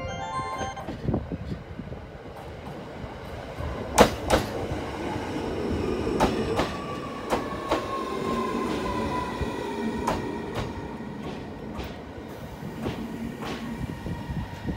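JR East EV-E301 battery-electric train pulling in and braking: its Mitsubishi IGBT VVVF inverter whines, the pitch sliding slowly downward as the train slows, over a steady rumble. Sharp wheel clacks over rail joints come at intervals, the loudest pair about four seconds in.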